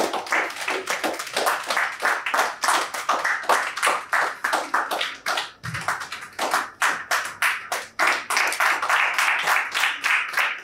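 A group of people clapping without a break, each clap sharp and separate.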